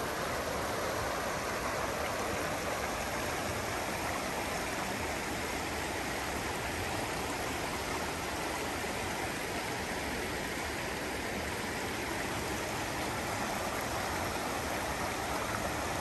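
Steady, even rushing noise that holds a constant level throughout, with no distinct events.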